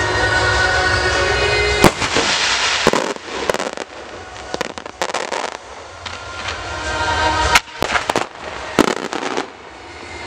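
Aerial firework shells launching and bursting: a string of sharp bangs with crackle between them. The loudest bangs come about two seconds in and again about seven and a half seconds in.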